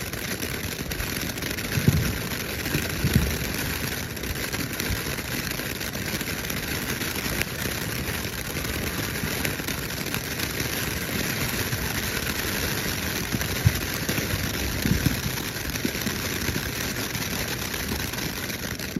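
Ground fountain firework spraying sparks: a steady hissing spray with a few louder pops scattered through it.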